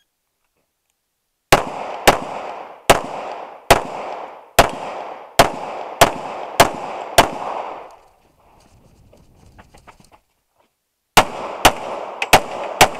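Pistol fired in a quick string of nine shots, about one every two-thirds of a second, each trailing off as its sound dies away. After a pause of about three seconds with faint clicks, five more rapid shots come near the end.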